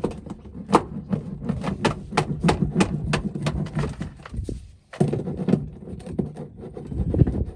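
Hand roller pressing foil-backed sound-deadening mat onto a car's sheet-metal floor, with rapid irregular clicks and crackles over a low rumble and a short pause about two-thirds of the way through.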